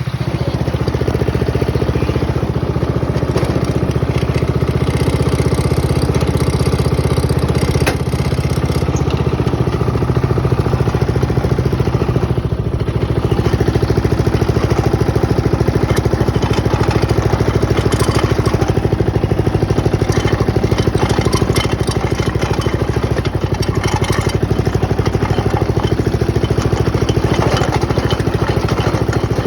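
Hot-rod lawn mower's small engine running steadily, its pitch shifting a few times as the engine speed changes, with a brief dip about halfway through.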